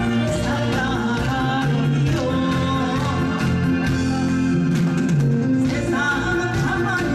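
A woman singing a Korean trot song into a microphone, her amplified voice carrying the melody over an instrumental accompaniment.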